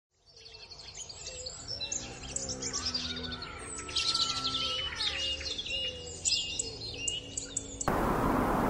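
A chorus of forest birds chirping and whistling, with rapid overlapping calls over low held tones. It cuts off abruptly near the end into the loud, steady rush of breaking waves.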